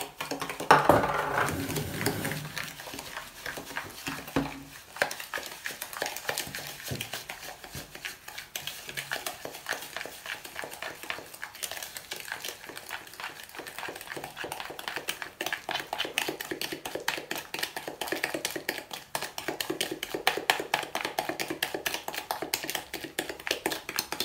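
Metal spoon beating egg yolks and sugar in a plastic bowl: rapid, steady clicking and scraping of the spoon against the bowl, several strokes a second, with a louder knock about a second in.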